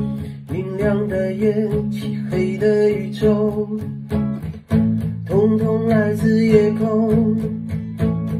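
A man singing in Mandarin to his own strummed acoustic guitar, in two long phrases with a short break between them.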